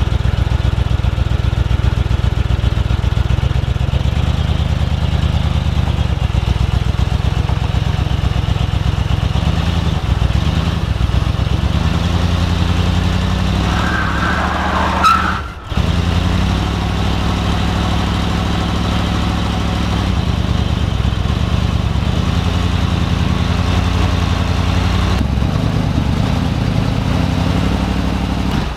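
1975 Ford F-100's V8 engine running steadily at low revs, with a brief break in the sound about halfway through.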